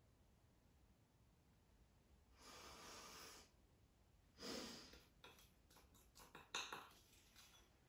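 Quiet breathy laughter: two soft breaths out, the second louder, then a few light clicks and taps of a metal spoon against the bowl of glaze.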